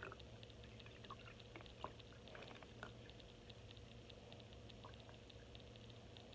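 Faint trickle of apple juice being poured carefully into a small bottle, with scattered light clicks.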